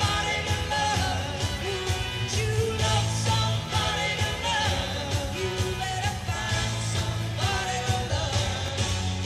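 Rock band playing live, a lead singer's voice carried over steady bass and drums.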